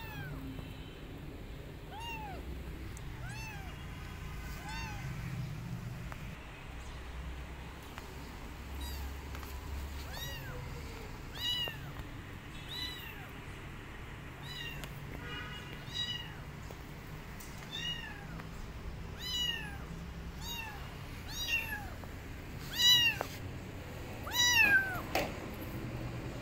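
Kitten meowing over and over in short, high-pitched, arching calls, roughly one a second, loudest near the end.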